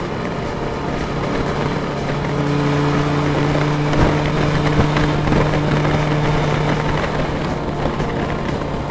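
Honda CB550F's air-cooled inline four-cylinder engine running at a steady cruising speed, with wind and road noise; its hum grows louder a couple of seconds in and eases again near the end. Two brief knocks about halfway through.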